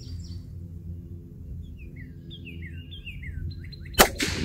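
Small birds chirping in a run of short, falling notes over a steady low hum, then a single sharp rifle shot about four seconds in.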